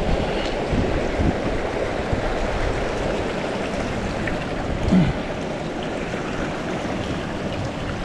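Mountain stream water rushing steadily, with a few brief soft low thumps, the loudest about five seconds in.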